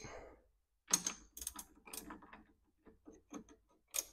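Faint, irregular metallic clicks and clinks of a hand ratchet and head bolts being worked, as a cylinder head is tightened down in the machine's fixture.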